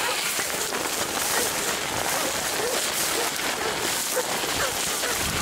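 Dry brush, cane stalks and twigs rustling and crackling against clothing and the camera as someone pushes through a dense thicket on foot; a steady crackling noise.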